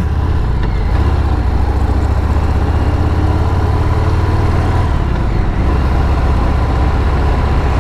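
Motorcycle engine running steadily while being ridden at speed. The engine note shifts briefly about five seconds in.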